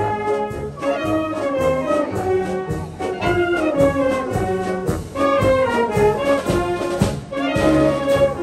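Tyrolean-style Alpine wind band playing a tune: clarinets, flutes, saxophones, trumpets and a tuba together, with a steady beat of repeated notes in the bass.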